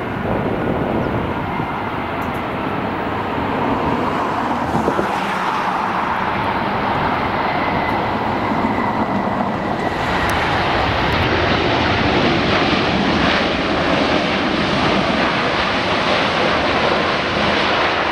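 Jet engines of a Qantas Airbus A380 (Rolls-Royce Trent 900s) as the airliner lands and rolls out on the runway. A steady jet roar carries a faint high whine, and about ten seconds in it turns louder and hissier as the aircraft decelerates.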